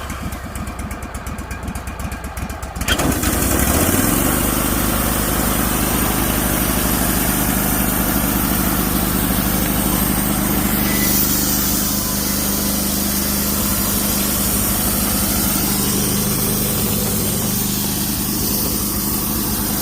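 Wood-Mizer LT15 Wide band sawmill's engine idling with a fast, even pulse, then revving up about three seconds in. It then runs steadily at full speed while the band blade makes a shallow skimming cut along the top of a cedar log.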